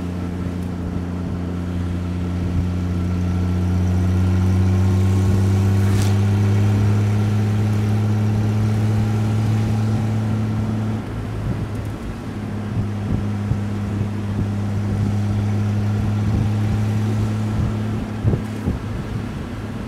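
Six-cylinder 2-litre Triumph Vitesse engine of a Marlin Roadster kit car, heard from the open cockpit, pulling on the move. Its note rises slowly for about ten seconds, then eases off and holds steady.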